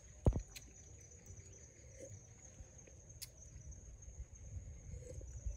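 Steady high-pitched insect trill, with scattered light clicks and one dull thump about a third of a second in.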